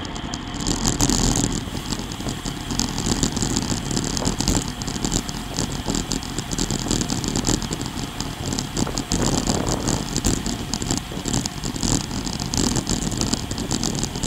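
Wind rushing over the microphone of a bicycle-mounted camera, mixed with tyre and road noise from a road bike moving at speed on asphalt.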